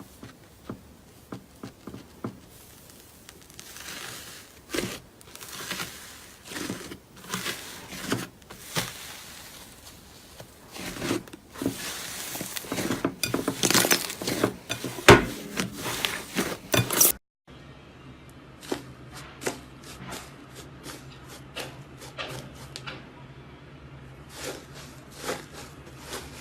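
Slime being squeezed, poked and stretched by hand: a run of sticky clicks, pops and crackles that grows busier and louder toward the middle, then stops abruptly and gives way to lighter, sparser clicking over a faint steady hum.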